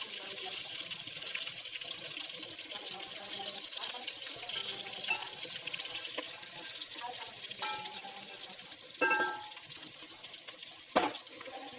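Stuffed bitter gourds (karela) sizzling gently in mustard and cooking oil over a low flame: a steady hiss with small crackles. A metal utensil clinks against the pot about nine seconds in, and knocks sharply once more near the end.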